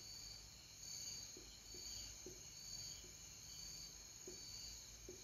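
Whiteboard marker writing, a few faint soft ticks as it strokes the board, over a faint, steady, rhythmic high chirping in the background.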